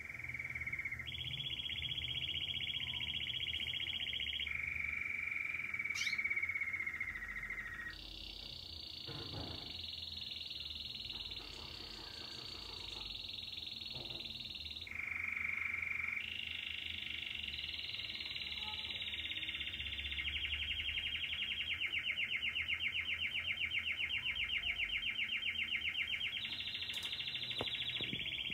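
Young Belgian canary singing one long, unbroken song of rapid rolls, each held for a few seconds before jumping to a new pitch. About two-thirds of the way through it turns into a fast pulsing trill.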